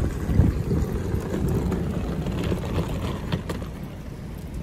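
Wheeled suitcases rolling over rough pavement, a steady low rumble with a few faint clicks.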